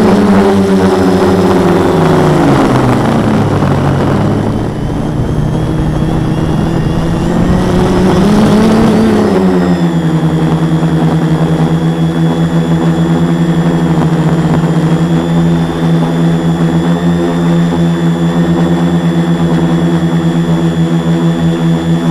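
Quadcopter's four Multistar 2212 920kv brushless motors spinning 10x4.5 propellers, heard from a camera mounted on the frame. The pitch drops about two seconds in, climbs again around eight seconds, then holds steady with a regular pulsing as the craft hovers.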